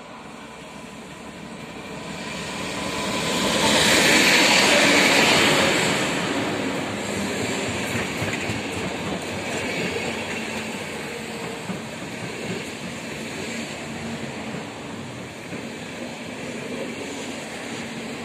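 Diesel-hauled passenger train arriving at a station. The locomotive's engine and wheels build up and pass loudest about four seconds in. The coaches then roll by more quietly, clattering over the rail joints as the train slows.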